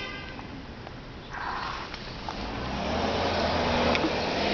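A car's engine and tyres running close by just after it has honked, a low steady hum that comes in about halfway and grows louder toward the end.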